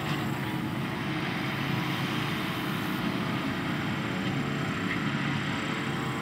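Steady drone of heavy diesel farm machinery, a John Deere 8285R tractor pulling a forage wagon with a John Deere 8600 self-propelled forage harvester working close by, a steady whine running over the engine rumble.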